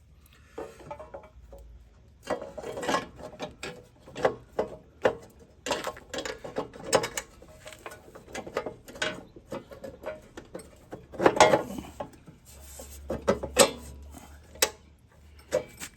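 Irregular metallic clanks, rattles and clicks of a power rake and hand tools being handled, coming in several bursts.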